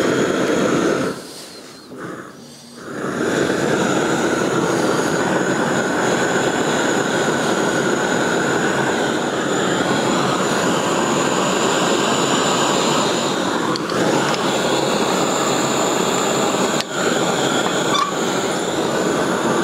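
Gas torch burning with a steady roar as its flame preheats a cast iron exhaust manifold for welding. About a second in it drops much quieter for roughly two seconds, then comes back at full strength.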